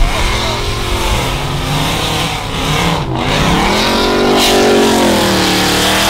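Pickup truck engine revving hard as it plows into a deep snowdrift, its pitch climbing and dropping several times as the wheels spin and bite, with a brief dip about three seconds in before it pulls high again. Wind hisses on the microphone underneath.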